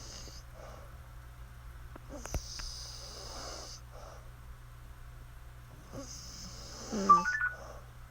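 A woman snoring in her sleep: wheezy, hissing breaths roughly every four seconds. Near the end comes a louder snort with a brief squeaky whistle rising in pitch.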